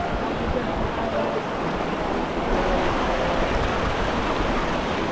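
Shallow mountain stream running over stones, a steady rush of water.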